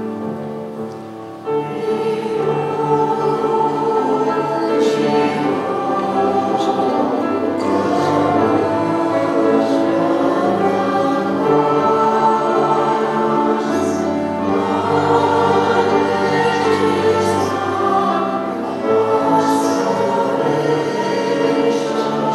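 Church choir singing a hymn, the singing swelling louder about one and a half seconds in.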